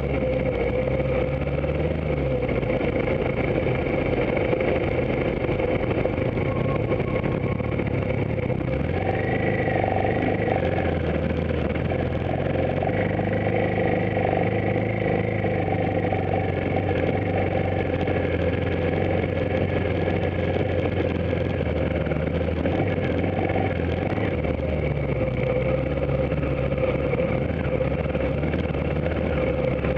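Trail motorcycle engine running while riding a forest track, heard from the handlebar; the engine note rises and falls several times with throttle and gear changes, going up about a third of the way through and dropping back later.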